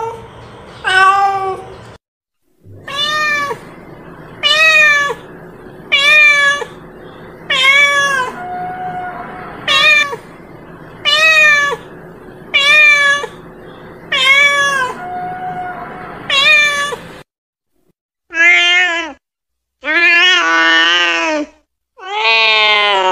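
Domestic cat calling out to other cats with repeated meows, about one every second and a half, each rising then falling in pitch. After a brief pause a few seconds before the end, the meows turn longer and higher, and the last one is drawn out and held.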